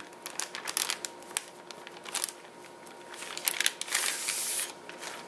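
Blue plastic bag crinkling and rustling as a replacement laptop LCD panel is slid out of it: scattered small crackles, then a longer, denser rustle a little before the end.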